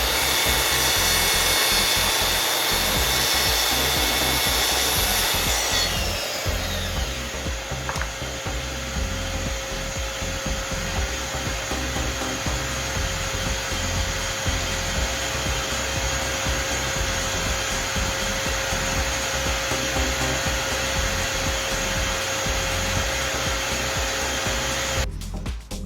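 A power tool working on wood, with a loud rasping run that changes about six seconds in to a quieter, steadier whir with a single held tone. It cuts off abruptly just before the end.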